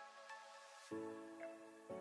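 Quiet background music of sustained chords, with a new chord coming in about a second in and another near the end.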